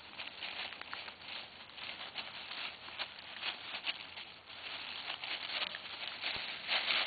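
Dry fallen leaves rustling and crackling in quick, irregular crunches as a bluetick beagle puppy roots and steps through them, with a louder crunch near the end.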